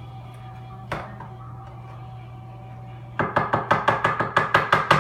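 A utensil knocking rapidly against a bowl of brownie batter, about five quick strikes a second, starting about three seconds in after a single knock, over a steady low hum.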